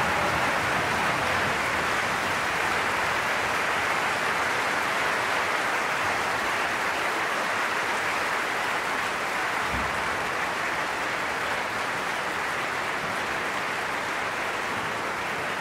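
A large opera audience applauding: dense, steady clapping that eases off slightly over the stretch.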